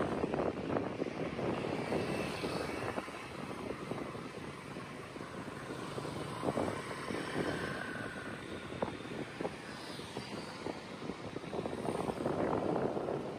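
Steady engine noise of a vehicle, with many small clicks and rattles, growing louder again near the end.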